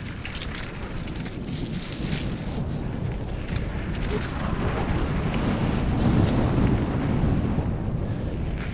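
Wind rushing over the microphone of a riding mountain biker, mixed with tyre noise on a wet dirt trail and small rattling clicks from the bike, growing louder to a peak about six seconds in as speed builds, then easing slightly.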